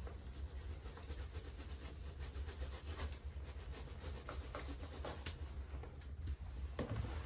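Steady low wind rumble with many small, irregular clicks and scraping noises over it.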